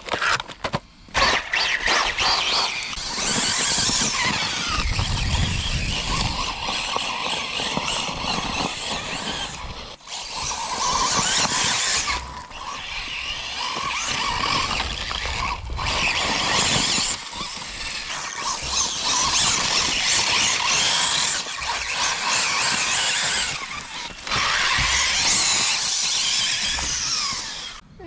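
Radio-controlled cars driving fast: a high, hissy whine from the motor and drivetrain with tyre noise, in several loud stretches that stop and start abruptly.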